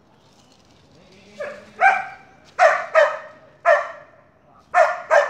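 Border collie barking, about seven short, sharp barks starting about a second and a half in, the first one softer.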